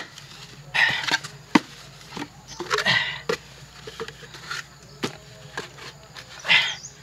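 Hollow bamboo poles being handled and set into sandy soil: a few sharp wooden knocks as the poles strike each other, and three short scraping rushes of sand.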